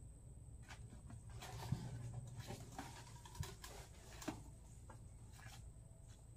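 Faint crackling of leaves and twigs with light knocks as a long bamboo pole is jabbed up into a marang tree's branches, three sharper knocks standing out in the middle.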